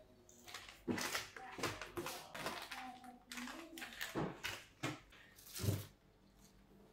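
Irregular rustling and handling noises: plastic packets crinkling as they are sorted out of a woven water-hyacinth basket, then the wicker basket scraping and creaking as it is lifted onto a wooden shelf near the end.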